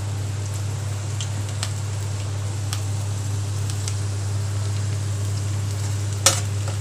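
Chopped garlic frying in hot oil in a kadhai: a soft, steady sizzle with scattered small crackles over a low steady hum. Near the end comes one sharp knock, the loudest sound.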